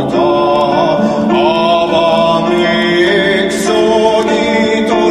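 Background music: a voice singing long, gliding notes over sustained instrumental tones.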